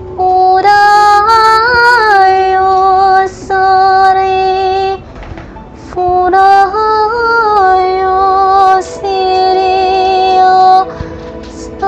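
A woman singing in tongues, wordless syllables on long held notes with small turns in pitch, in four phrases with short breaks between them.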